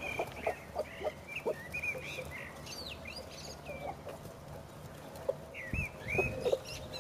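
Hens clucking repeatedly while feeding, with short high chirps that bend up and down in pitch mostly in the first few seconds and again near the end.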